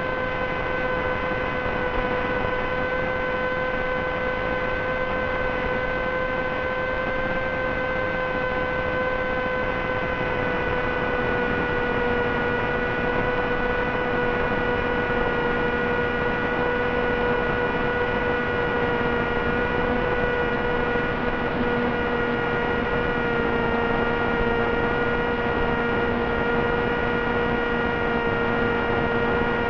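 Steady, pitched drone of a small electric brushless motor and 6x3 propeller in flight, with several overtones, its pitch slowly sinking. A fainter lower tone joins about a third of the way in.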